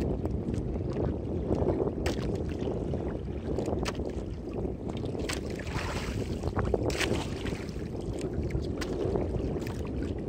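Wind buffeting the microphone and water sloshing against the hull of a small outrigger boat drifting at sea, with no engine running. Scattered light clicks and taps come through over it.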